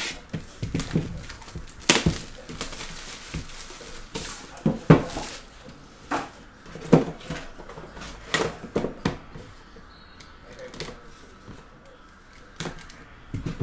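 Trading-card box being opened by hand: cardboard scraping and rustling, with a scatter of sharp knocks and clicks as a black metal collector's tin is slid out and set on the mat. Near the end, a knife blade slits the seal of a small inner box.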